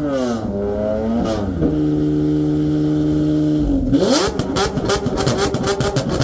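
A performance car engine being revved hard: the pitch swings up and down, is held steady at high revs for about two seconds, then drops. It then revs up again into a rapid string of exhaust pops and crackles, about six a second, until the end.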